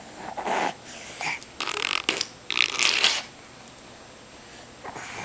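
A baby blowing raspberries against bare skin: several short sputtering bursts in the first three seconds, the longest and loudest about three seconds in, then a quieter stretch.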